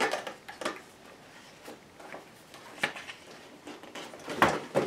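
Handling sounds of a large paper instruction booklet being pulled out against a cardboard box: a few scattered light knocks and paper rustles, the loudest near the end.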